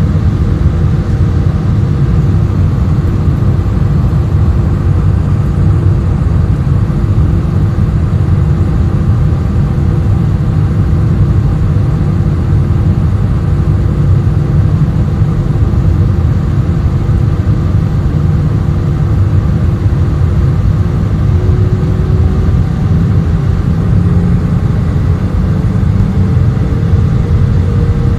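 Steady roar of a jet airliner in flight, heard inside the cabin beside the wing, deep and rumbling with an engine hum on top. The hum rises slowly in pitch over the last several seconds as the engine thrust changes.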